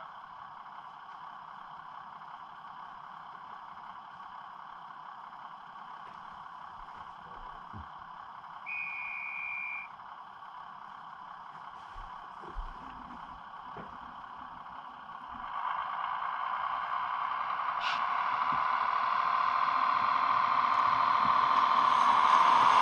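HO-scale model train running on the layout, its motor and wheels on the track growing steadily louder over the last third as it approaches. Before that there is a faint steady hum, with one short high electronic tone near the middle.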